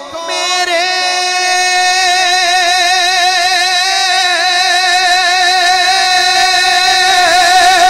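A man reciting a Punjabi naat holds one long sung note into a handheld microphone, the pitch wavering in a strong, even vibrato throughout.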